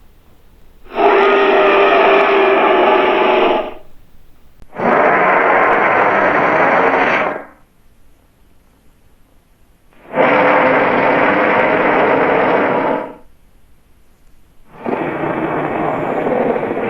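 Imperial T-rex roar sound effect, played four times: each roar lasts about three seconds with a short pause between, and the last one is still going at the end.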